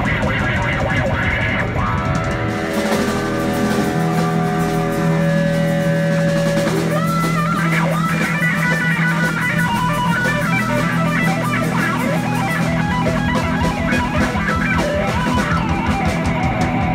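Live Chicago-style blues band: a Strat-style electric guitar plays lead lines with bent notes over a drum kit.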